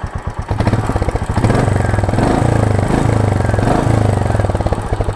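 Royal Enfield Meteor 350's 349 cc single-cylinder engine heard at the exhaust: an even idle beat, revved up about half a second in and held at higher revs for a few seconds, then easing back near the end.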